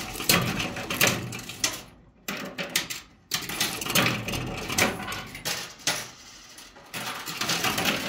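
Coins dropping into a coin-pusher arcade machine and clinking against the coin piles and metal shelves, mixed with the clicking of the machine's mechanism. The clatter comes in bursts with brief lulls, and is quieter for a stretch near the end.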